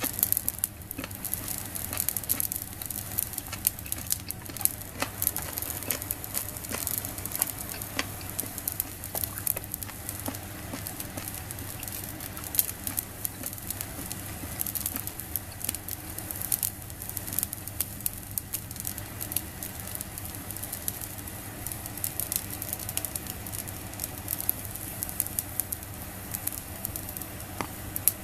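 Squid grilling on a wire net over a small solid-fuel fire, sizzling steadily with frequent irregular sharp pops and crackles.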